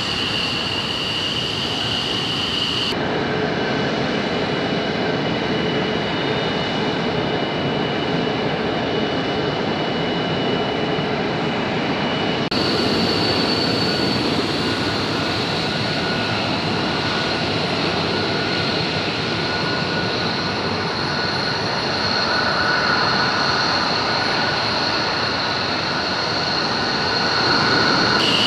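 Fighter jet engines at taxi power, mostly F-16s: a steady rushing whine with thin high tones. The sound changes abruptly about three seconds in, again about twelve seconds in, and once more just before the end, as different jets pass.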